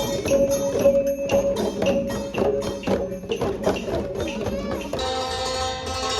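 Thai traditional music played by an ensemble, with quick, regular percussive strokes over pitched instruments. About five seconds in it switches abruptly to a different, more sustained passage.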